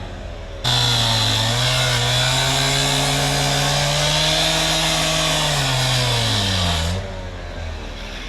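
Handheld cut-off saw cutting through old steel gas pipe. The blade bites in suddenly about a second in with a high metallic screech over the engine's steady high revs, then near the end the engine winds down as the cut finishes and it drops back to a low run.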